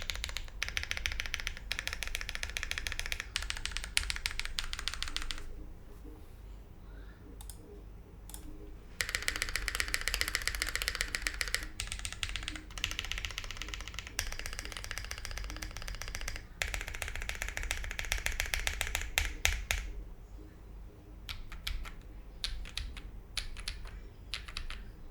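Typing on a Think6.5 v2 mechanical keyboard with Drop Holy Panda tactile switches in a polycarbonate plate and GMK doubleshot keycaps. The key presses come in fast runs of several seconds, with a pause of a few seconds after the first run and slower, separate key presses near the end.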